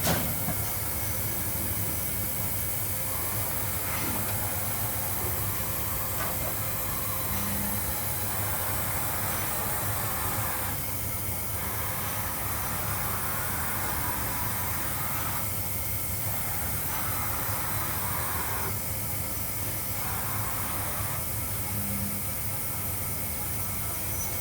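Johnford VMC-85 CNC milling machine running: a steady mechanical hum with hiss, and a mid-pitched rushing noise that comes and goes every few seconds.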